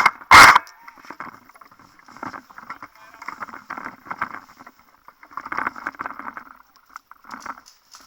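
Two loud knocks about half a second apart at the start, followed by scattered fainter scuffing and rustling noises.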